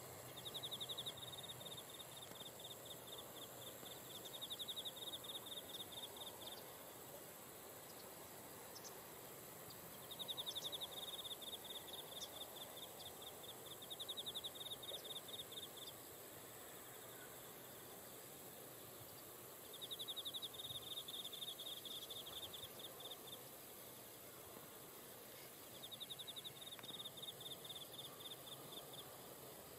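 An insect singing in trills of rapid high-pitched pulses, in five bouts of a few seconds each with pauses between, over a faint steady background hiss.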